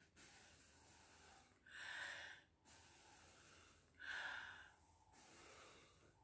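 Faint breathing of someone blowing through a homemade soda-bottle bubble blower. Long soft exhales blown through the soapy sock-covered bottle are broken twice, about two seconds apart, by quicker, louder in-breaths.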